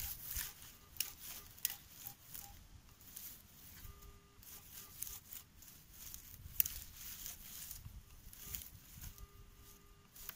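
Garrett AT Pro metal detector giving short beeps and then two longer steady tones, one about four seconds in and one near the end, as its coil sweeps back and forth over a dug hole to pinpoint a faint, elusive buried target. The coil rustles and brushes through grass between the tones.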